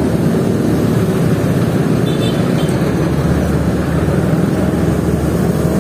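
Motorcycle engine running steadily while riding, heard close up from the handlebars as a loud, even low rumble mixed with road noise.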